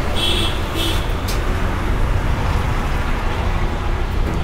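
Steady low rumble of outdoor background noise, with two short high chirps in the first second and a light click just after.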